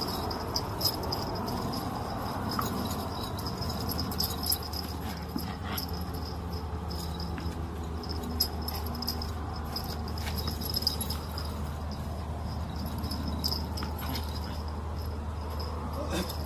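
A German Shepherd and a small white dog playing on dirt: dog sounds with scattered short clicks and scuffs. A steady high insect chirring runs behind them.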